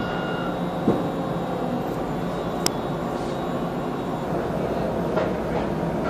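Steady running noise inside a moving tram car. A high, thin tone stops about half a second in, and there is a knock about a second in and a sharp click a little later.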